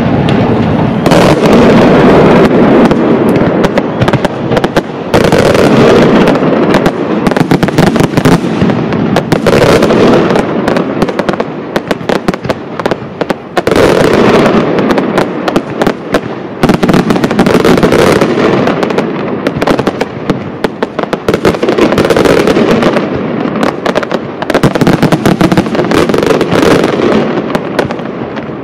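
Fireworks display going off in a continuous rapid barrage of loud, densely packed bangs, swelling and easing in waves every few seconds.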